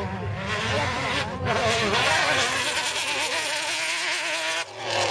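Off-road rally car's engine revving hard, its buzzing pitch rising and falling with the throttle and gear changes, with a short dip about four and a half seconds in.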